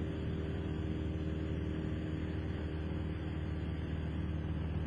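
Cessna 172SP Skyhawk's four-cylinder Lycoming engine and propeller droning steadily in cruise, heard inside the cabin. The pitch and level hold constant throughout.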